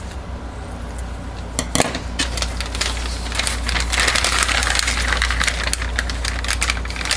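Thin plastic piping bag crinkling and crackling as it is handled and opened out, after a few sharp clicks a little under two seconds in, over a steady low hum.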